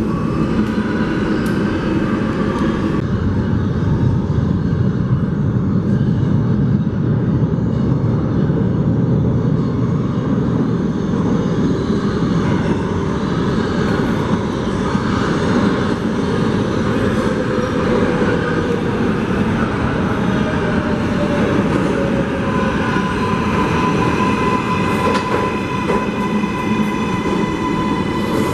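An R188 subway train of the New York 7 line running through the station with a steady, loud rail rumble. A steady whine and higher ringing tones join in over the last several seconds.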